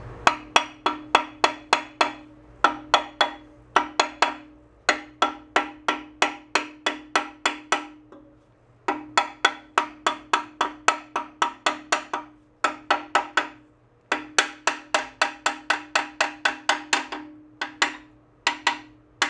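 Hammer tapping through a wooden block on a wet cylinder sleeve of a 1941 Farmall A engine, driving the sleeve down over its O-rings into the block. The taps come in quick runs of about three to four a second with short pauses between runs, each knock with a short ring.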